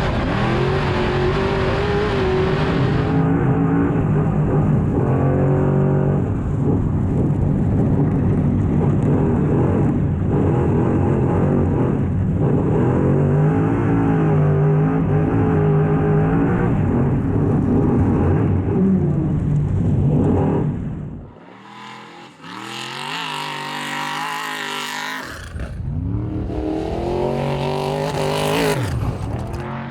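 Unlimited trophy truck's race engine running hard at high revs, its pitch rising and falling as it accelerates and lifts. Past the middle it sounds thin and tinny for a few seconds, then comes back full with a rising-then-falling engine note near the end, as of the truck passing close by.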